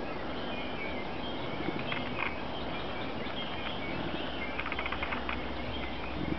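Outdoor ambience in snow with faint bird chirps throughout, and short runs of crisp crunching steps in the snow about two seconds in and again near the end.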